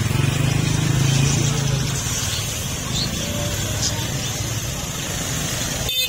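A motorcycle engine running close by, loudest in the first two seconds and then easing off, over the general noise of a busy street with people talking.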